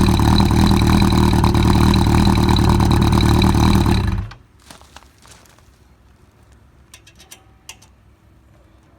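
Yamaha XJR1200's air-cooled inline-four idling steadily through a longer, slightly thicker aftermarket silencer, then cut off abruptly a little over four seconds in; only a few faint clicks follow.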